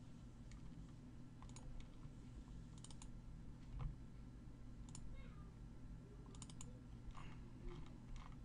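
Computer mouse clicking through folders in a file dialog: single clicks every second or so, some in quick pairs and threes, over a low steady electrical hum.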